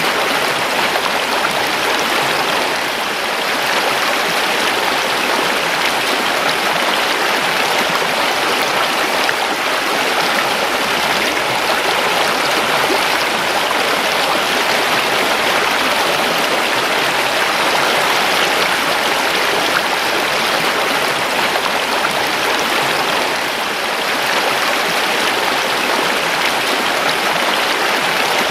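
Creek water flowing steadily: a continuous, even rushing of running water.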